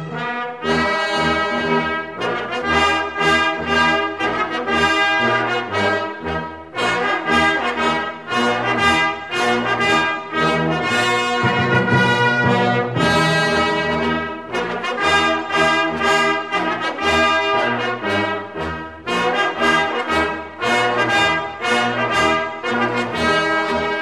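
Music led by brass instruments: a brass ensemble playing a tune with sustained, changing notes throughout.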